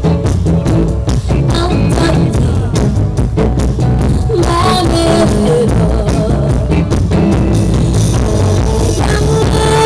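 Live band playing an upbeat rock-style tune: electric guitar and upright double bass over a steady drum beat, with held melody notes.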